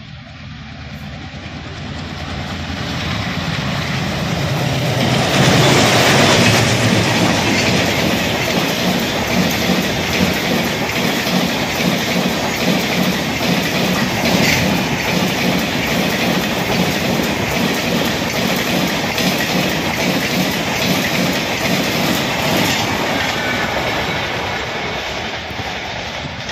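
Express train hauled by a WAP-7 electric locomotive running past close by. The noise builds as it approaches and is loudest about six seconds in as the locomotive passes. It stays loud while the coaches roll by with a steady clatter of wheels over the rail joints, then dies down near the end.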